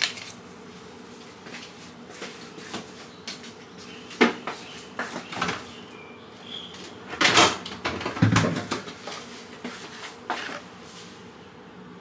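Scattered light clicks and knocks of kitchen cupboards and doors being handled, with a louder clatter about seven seconds in and a dull thump just after, over a faint steady hum.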